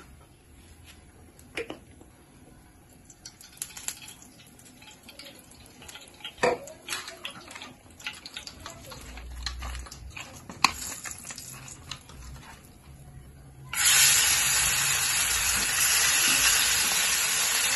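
Light clinks and knocks of a pan and a steel plate being handled, then, about fourteen seconds in, a sudden loud, steady sizzle as marinated sardines go into hot oil in a frying pan and start to fry.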